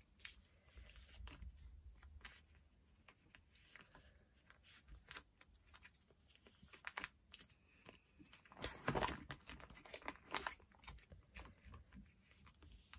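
Faint crinkling and clicking of plastic photocard sleeves and binder pages being handled as cards are slid into place, with a busier patch of rustling about nine seconds in.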